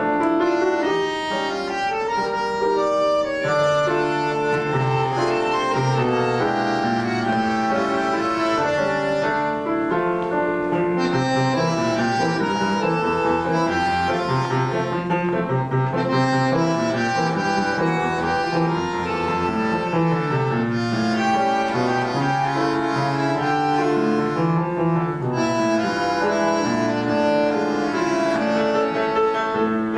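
Two bandoneons and a piano playing a tango vals in triple time.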